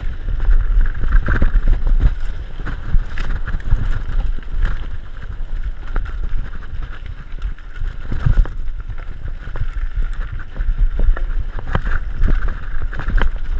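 Mountain bike rolling fast over a gravel track: wind buffeting the handlebar-mounted microphone over a steady rumble of tyres on loose stones, with frequent clicks and rattles as the bike jolts over bumps, the sharpest knock a little past eight seconds in.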